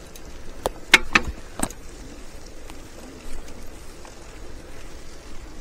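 Bicycle with a rigid steel fork rolling along a path, its tyres giving a steady rolling noise, with a short cluster of sharp knocks and rattles between about one and two seconds in.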